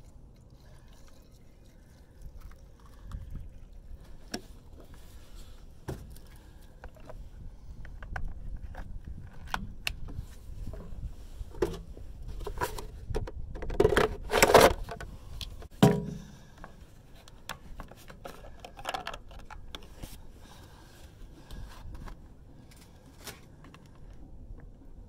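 Handling noise from servicing a chainsaw: scattered clicks, scrapes and knocks of plastic caps, the saw body and a plastic oil jug, with a cluster of louder knocks a little past the middle.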